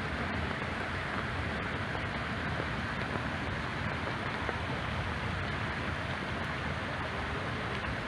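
Water of a small man-made backyard babbling brook flowing in a steady rush.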